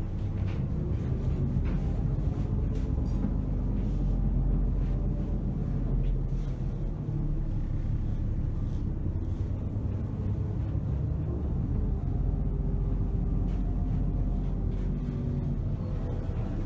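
Steady low rumble of a steamship under way, heard inside its dining salon, with a few faint handling clicks.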